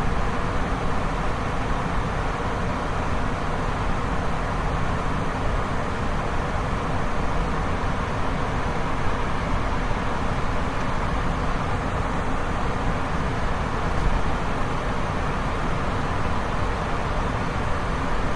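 Waterfall: a steady, unbroken rush of falling river water.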